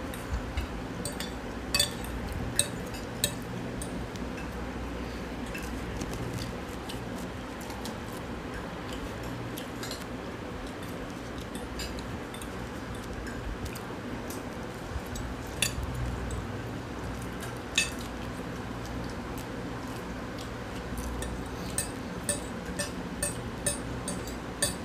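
Spoons and forks clinking against plates as people eat noodles: scattered light clicks that come more often near the end, over a steady low room hum.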